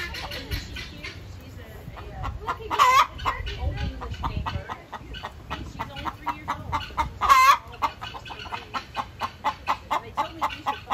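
Hens clucking in a pen in a quick, steady run, broken twice by a short, loud bird call, about three and seven seconds in.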